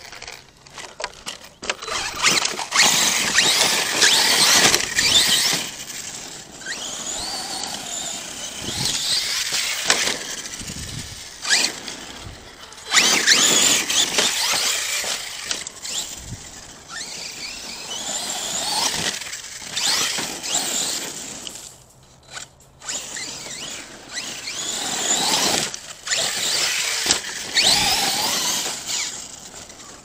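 ARRMA Kraton 6S RC truck's brushless electric motor and gear drive whining high-pitched, rising and falling in pitch with the throttle, in several hard runs with short quieter gaps between them.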